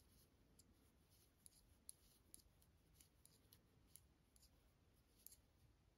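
Metal knitting needles clicking faintly and irregularly as knit stitches are worked, the loudest tick about five seconds in; otherwise near silence.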